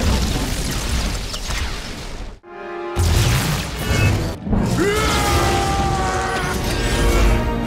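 Film soundtrack: a dramatic orchestral score mixed with booming, crackling lightning effects. The sound drops away briefly about two and a half seconds in, then swells back in with the score and the crackle of electricity.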